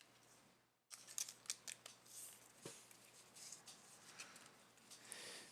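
Faint rustling and light clicks of trading cards being handled and slid into a plastic card sleeve.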